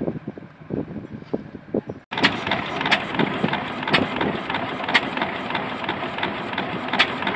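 A tractor towing a trailer pulls away with a low chugging engine. After a cut about two seconds in, an old single-cylinder stationary engine with a large flywheel and a cooling-water tank is running slowly. It gives a sharp crack about once a second over a steady clatter.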